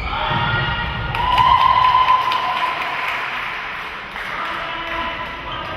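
Players shouting, with sneakers squeaking and tapping on the sports hall's court floor, all echoing in the hall. The loudest stretch, with a long held high call, comes between about one and two seconds in.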